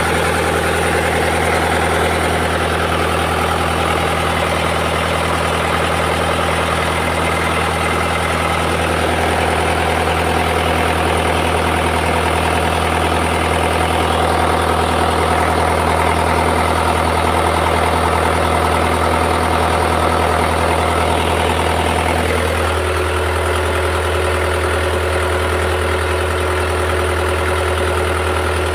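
An engine running steadily with a constant low hum. Its higher tones change about three-quarters of the way through while the low hum carries on unchanged.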